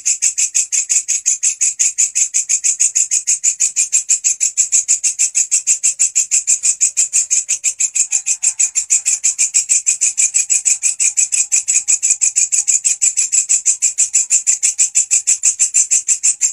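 Walang kecek grasshopper singing loudly: a steady, rapid run of shrill, high chirps, about five a second, without a break.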